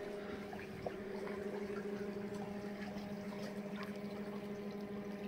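Oceanvolt electric drive motor running in gear while moored: a quiet, steady hum with water churning from the propeller wash. This is as noisy as the electric drive gets.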